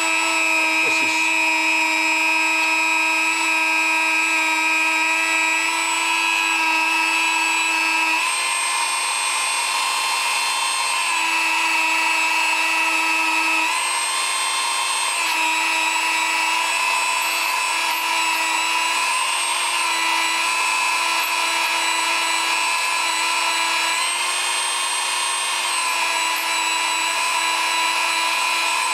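Dremel rotary tool running with a steady high whine, its felt polishing pad and metal polishing paste spinning inside a brake master cylinder bore to polish out built-up crud. Its pitch steps slightly up and down several times.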